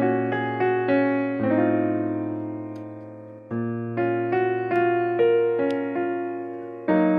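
Background music on a keyboard: notes struck in a steady pattern over held low bass notes, in phrases with a short lull about halfway through.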